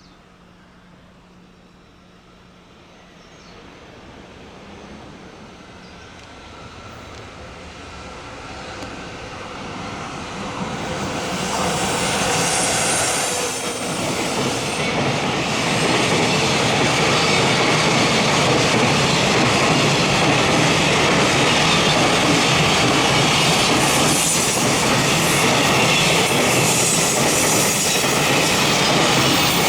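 JR Freight freight train approaching, growing steadily louder over about fifteen seconds, then passing close with a loud, even noise of its wheels on the rails.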